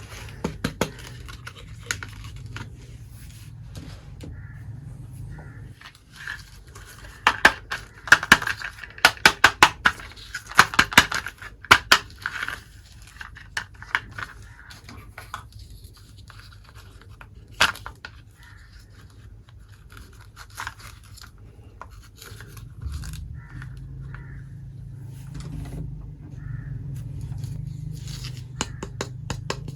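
Hands unpacking and handling small toy kitchen pieces and their packaging: a run of sharp clicks and taps with scraping and tearing. A low hum sits underneath at the start and again near the end.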